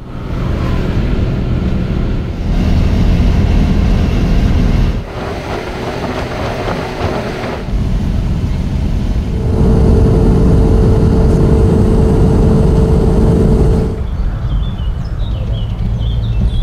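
Vehicle engine and tyre rumble heard from inside the cab while driving, in short stretches that change abruptly every few seconds. A steady whine joins in from about nine seconds to about fourteen seconds in.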